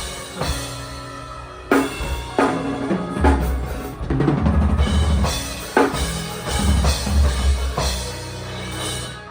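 A live band playing during a sound check, led by a drum kit with a heavy kick drum and snare hits over sustained low bass and instruments.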